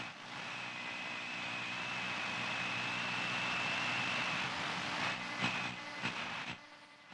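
Sound effect of a steady rushing noise with a thin high whine held for about four seconds, like a jet passing; a couple of clicks near the end, then it fades out.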